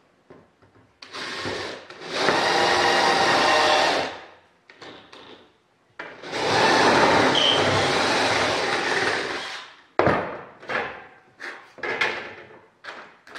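Cordless drill boring 1/4-inch holes through stacked wooden rib forms and a metal rib blank: two steady runs of about three seconds each. Short knocks near the end as the drill is set down and the parts are handled.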